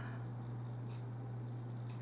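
Steady low electrical hum with faint room noise, and two faint ticks, about a second in and near the end.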